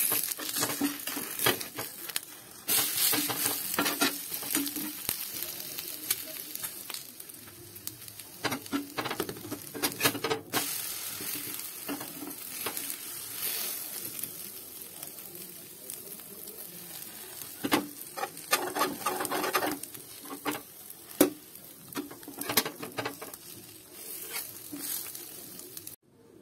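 An egg frying with a steady sizzle on a seasoned iron tawa, while a steel spatula scrapes and taps against the pan again and again as the egg is worked loose and flipped.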